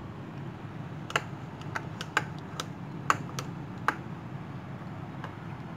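Metal spoon clinking sharply about eight times over three seconds while scooping and placing tuna filling, over a steady low hum.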